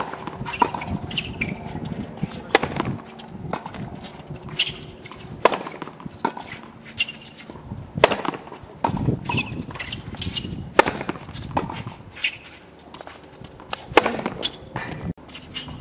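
Tennis balls struck by rackets in a rally on a hard court: a sharp pop about every two and a half to three seconds, with fainter ball bounces and shoe scuffs between the shots.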